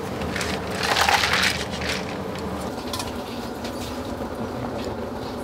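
Scraping and rustling as cooked vegetables are shifted about with chopsticks in a stainless-steel tray set over ice, loudest about a second in, followed by fainter clatter.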